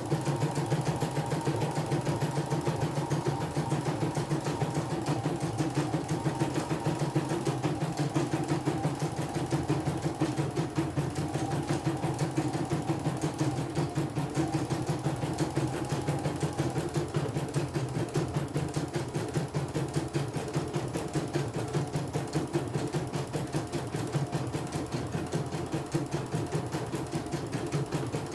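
CNY E900 embroidery machine stitching a test design, its needle going in a rapid, even rhythm without a break.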